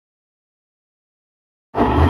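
Dead silence, then an electric blender's motor switches on abruptly near the end and runs loud and steady, grinding soaked lentils with a little water into batter.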